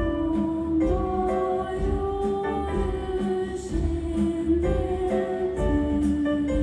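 Children's choir singing with a mixed ensemble of strings, piano and percussion, the accompaniment keeping a steady beat of a little over two strokes a second.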